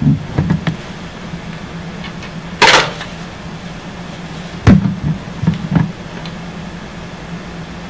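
Lego pieces handled and knocked against a desk: a few light knocks, a sharp click about halfway through and more knocks after it, over a steady low hum. A short burst of hiss comes a little under three seconds in.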